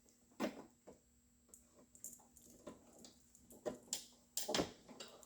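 A handful of light clicks and knocks from hands and tools working around car dash parts, with a cluster of them near the end, over a faint steady hum.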